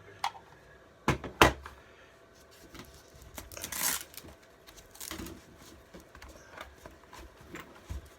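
Unboxing handling of a cordless tool kit's parts and packaging: two sharp knocks about a second in, then several short rustling, tearing bursts.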